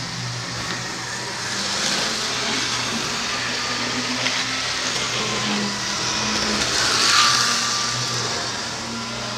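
HO-scale model train running on the layout: a steady small electric-motor whir with a low hum, swelling louder around the seventh second.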